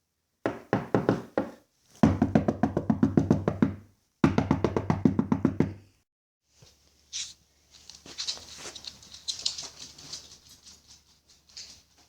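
Rapid knocking on a door in three bursts of quick raps, the second and third longer and louder. After that come fainter, irregular, higher-pitched scratchy sounds.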